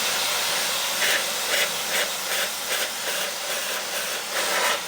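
Water spray hissing steadily, swelling and easing about two or three times a second.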